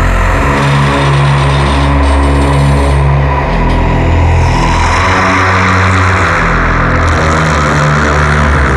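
Scary organ music: sustained low organ notes that change every second or so, under a loud rushing noise that spreads higher about five seconds in.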